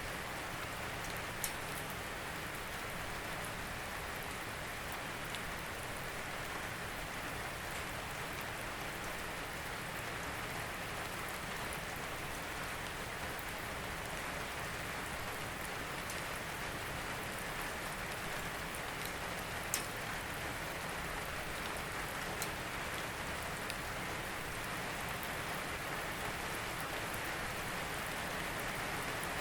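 Steady rain falling, an even hiss with a few sharper drops striking a surface, one at about a second and a half in and one at about 20 seconds.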